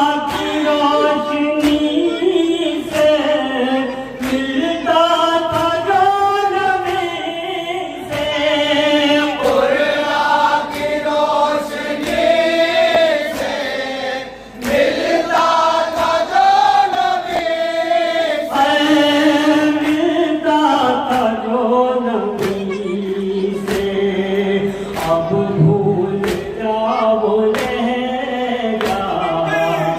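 Noha, a Shia mourning lament: a lead male reciter sings into a microphone while a group of men chant the lines with him. Regular slaps of matam (chest-beating) keep time beneath the voices, about once a second.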